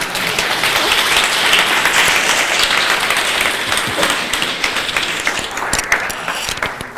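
Audience applauding, a dense patter of many hands clapping that swells, then thins out and dies away near the end.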